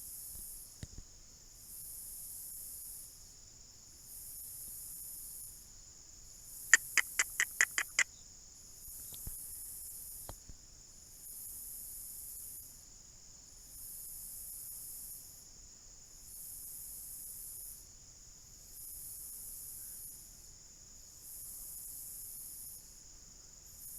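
Insects singing: a steady high drone, with a higher call pulsing on and off about every two seconds. About seven seconds in, a quick run of seven sharp clicks.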